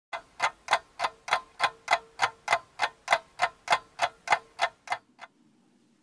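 Clock ticking, about three even ticks a second, stopping just after five seconds.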